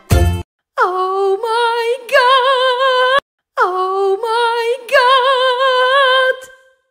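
Background music: a lone singing voice, unaccompanied, in two phrases. Each phrase opens with a downward slide and settles into held notes with vibrato. It fades out near the end.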